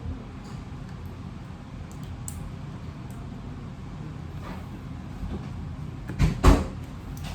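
Two short, loud thumps about a third of a second apart near the end, over a steady low room hum.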